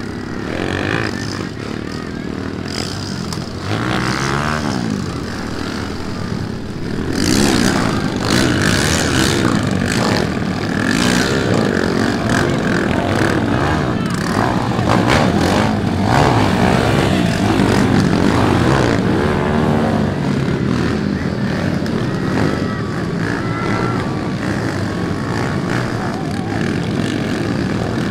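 Dirt bike engines revving and running on an enduro track, with the pitch rising and falling as the throttles open and close. It gets louder about seven seconds in.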